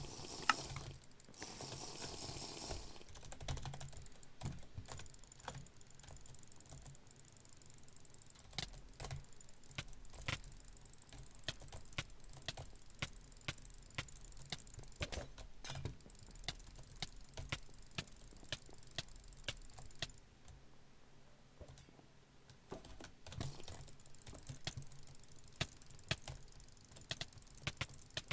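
Small, sharp clicks in an irregular string, a few a second, with a break of about three seconds about two-thirds of the way through. A faint steady low hum lies under them.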